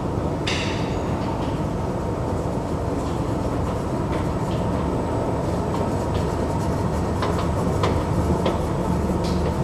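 Escalator running as it carries a rider up, a steady low rumble and hum. There is a brief rattle about half a second in and a few sharp clicks near the end as the steps flatten out at the top landing.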